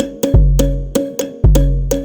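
Background electronic music with a steady beat: short clicky percussion hits over deep bass notes and plucked tones.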